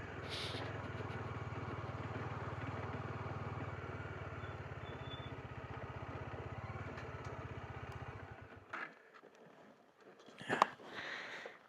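Motorcycle engine idling steadily, then stopping about eight and a half seconds in, followed by near silence with a couple of short clicks.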